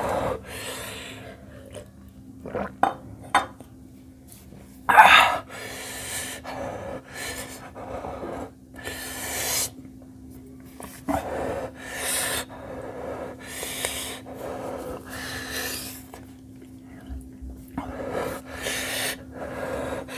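A man breathing hard through the mouth and nose in short huffs and sniffs, one every second or two, with one louder huff about five seconds in and a few small clicks a little before it.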